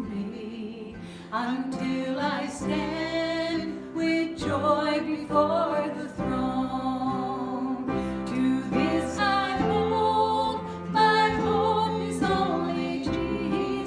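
A worship song sung with instrumental accompaniment: a sung melody over held chords.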